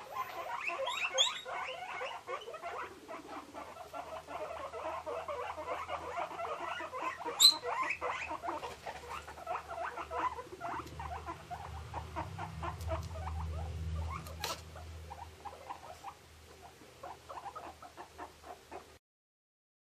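Guinea pigs giving rapid, short squeaks while pattering about, with a couple of sharp clicks along the way. The sound cuts off about a second before the end.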